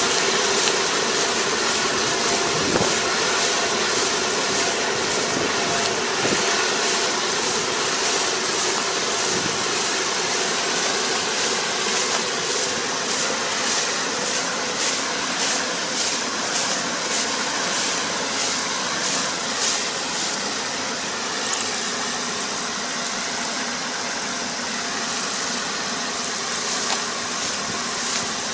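A farm machine's engine running steadily, a constant hum under a dense mechanical hiss and clatter that changes little throughout.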